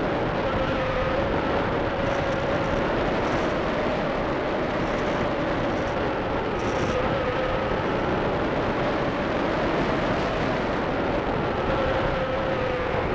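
Steady rush of airflow over a keychain camera carried aloft on a radio-controlled ASW 15 model glider, with a faint wavering whine under the noise.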